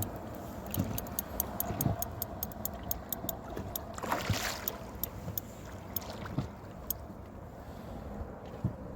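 Water sloshing against a small boat, with low knocks on the hull, a run of light clicks and a brief splash-like rush about four seconds in.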